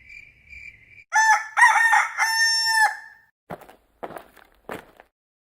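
Crickets chirp for about a second, then a rooster crows once, loud and drawn out. Three short noisy sounds follow, each about half a second apart.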